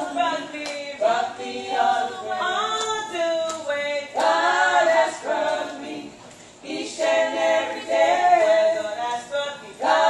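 Two women singing a gospel song together into microphones, with held, wavering notes and a short break about six seconds in before they carry on.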